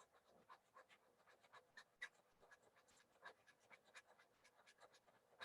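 Faint, irregular scratchy strokes of wet 150-grit sandpaper rubbed in circles over a plastic 3D print.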